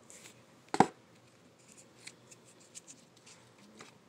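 A plastic fork picking through food in a takeout container: a sharp knock about a second in, then a run of small clicks and scrapes as it pokes and catches on the container and the food.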